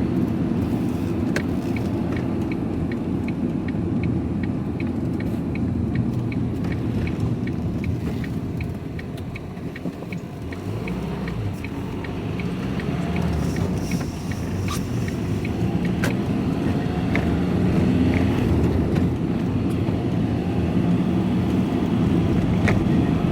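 Engine and road noise inside a moving vehicle's cab. Early on, a turn indicator ticks steadily at about two and a half clicks a second for several seconds. The noise eases as the vehicle slows, then builds again with rising engine pitch as it pulls away.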